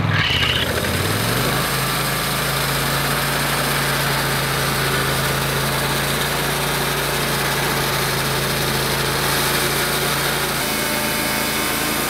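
Portable bandsaw sawmill's engine starting up and rising to speed in the first second, then running at a steady pitch, with the band blade cutting into the log by the end.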